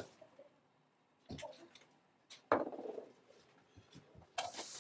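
A few knocks of a wok and utensils on a gas hob, then, near the end, a sudden sizzling crackle as food goes into the hot oil in the wok.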